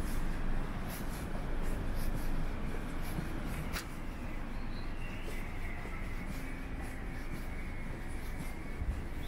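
Footsteps scuffing along at a steady walking pace, about two steps a second, over a steady low city rumble. A few faint chirps come in around the middle.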